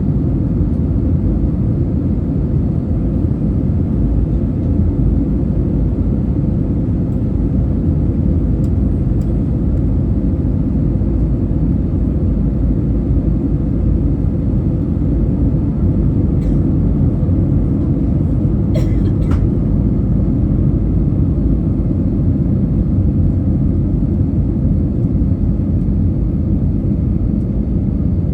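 Steady cabin noise inside an Airbus A320 on approach: engine and airflow noise as a constant low rumble, with a couple of brief clicks about two-thirds of the way through.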